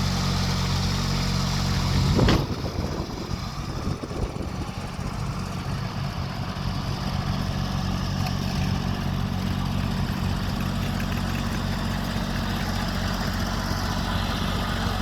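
Diesel engine of a Toro Groundsmaster 328-D ride-on mower running. About two seconds in, a brief loud burst breaks the steady hum and the level drops, after which the engine runs on more roughly.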